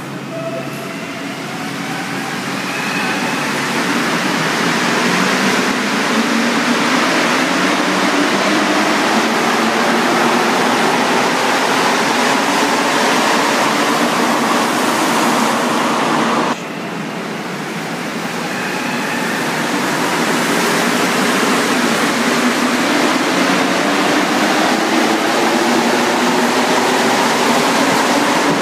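Rubber-tyred Montreal Metro train pulling out of a station: its motors whine, rising in pitch as it speeds up, over a rush of running noise that grows louder. An abrupt cut about halfway through starts a second departing train, whose whine rises again.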